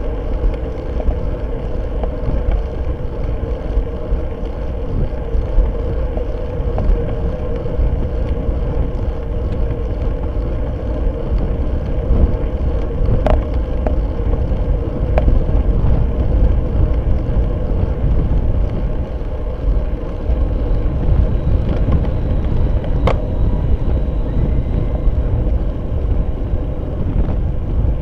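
Steady rumble of wind and road noise picked up by a seatpost-mounted camera on a road bike riding at race speed, with a faint steady hum. A few sharp clicks around halfway and again about 23 seconds in.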